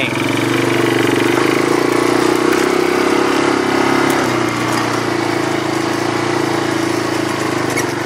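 A small engine running steadily at an even speed.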